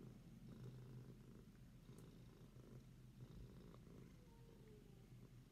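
A domestic tabby cat purring steadily and faintly, close to the microphone.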